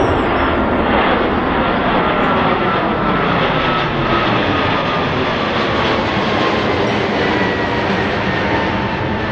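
Jet airliner's engines passing close by: a loud, steady rush with a high whine that slowly falls in pitch.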